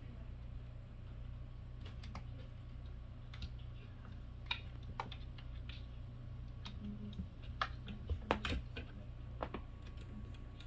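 Kittens play fighting, their paws and claws making irregular light clicks and taps that bunch together about eight seconds in.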